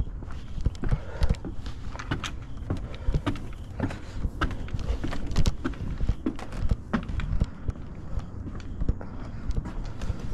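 Footsteps climbing deck stairs and crossing deck boards, a string of irregular knocks and clicks over a steady low rumble.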